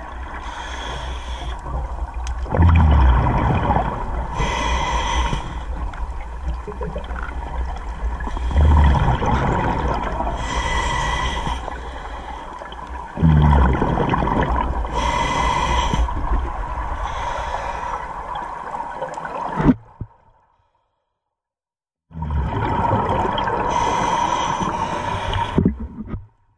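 Scuba diver breathing through a regulator underwater: a hiss on each inhale alternates with a loud rush of exhaled bubbles, the cycle repeating about every five to six seconds. The sound drops out for about a second and a half near the end.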